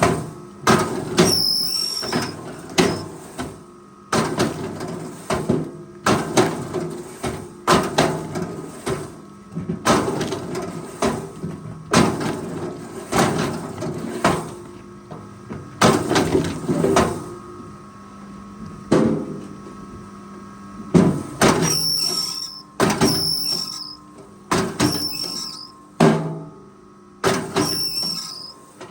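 Forestry machine at work: a steady hum under repeated heavy knocks, clatter and creaking, with short high metallic squeals coming about once a second in the last third.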